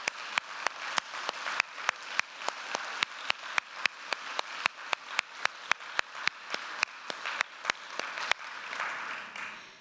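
Audience applauding, with one person's steady hand claps close to the microphone, about three a second. The applause dies away near the end.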